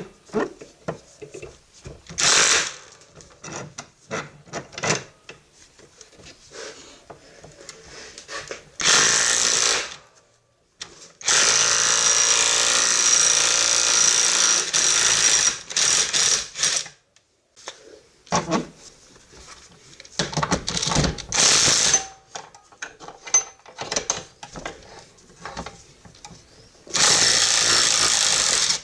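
Cordless brushless impact driver, run on a Makita LXT battery, hammering in repeated bursts: short ones about two and nine seconds in, a long run of about five seconds, a few more short bursts, and a last one near the end. Lighter clicks and knocks come between the bursts.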